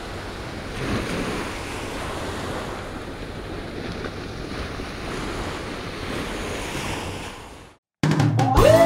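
Ocean surf and wind: a steady wash of noise with slight swells, fading out near the end. Music begins just after it.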